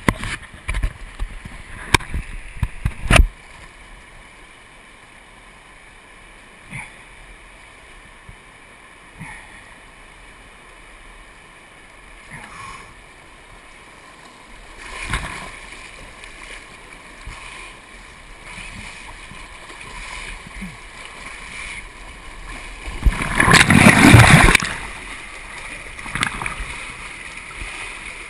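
River water splashing and gurgling right at the microphone at the water's surface, as a swimmer floats through a small rapid. There are sharp splashes in the first few seconds and a loud rush of churning water about 23 seconds in.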